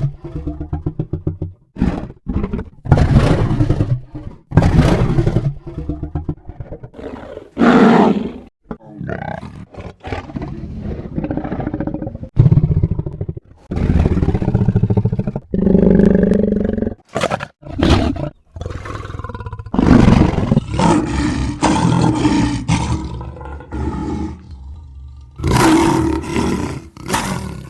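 Lion roaring: a long run of separate deep roars and grunts, one after another with short gaps, several cut off abruptly.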